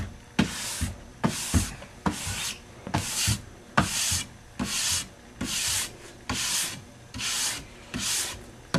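Brass brush stroked tip to tail along a freshly scraped, waxed alpine ski base, a short scratchy swish about once every 0.8 seconds, many strokes starting with a sharp tap. The brushing clears the leftover wax out of the base's structure grooves.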